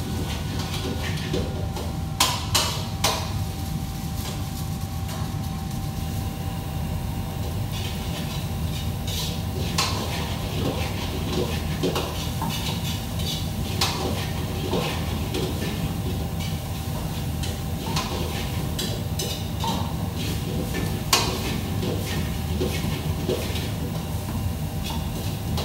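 Kitchen clatter: scattered clinks and knocks of utensils and dishes being handled at a stainless prep counter, over a steady low machine hum.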